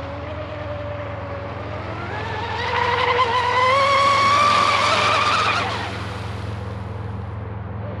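Whine of a 36-inch RC catamaran's brushless motor (SSS 4082 2200kv on 8S) running on the water. It rises in pitch and grows louder as the boat speeds up, then falls away just before six seconds in.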